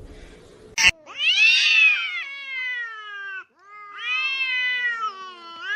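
Domestic cat letting out long drawn-out meows, three calls in a row, the first two lasting about two seconds each, after a short sharp click about a second in.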